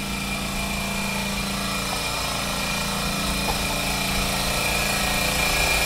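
An engine idling steadily, with a constant high-pitched whine over the low hum that grows a little louder near the end.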